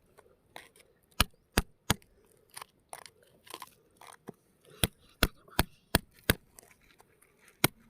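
Sharp, hard knocks in quick runs, about three a second: three together in the first two seconds, then a run of five or six from about five seconds in.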